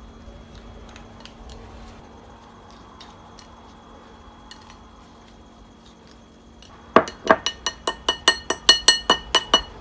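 A small plastic spoon stirring dry ground sesame and sugar in a ceramic bowl: after a few seconds of faint ticks, it clinks rapidly against the bowl, about six clinks a second with a ringing tone, for a couple of seconds near the end.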